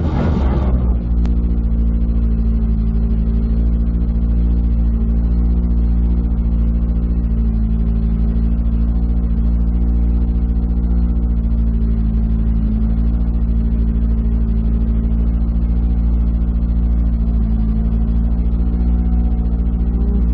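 Škoda Fabia R5 rally car's turbocharged four-cylinder engine idling steadily at a constant pitch, heard from inside the cabin. A single sharp click about a second in.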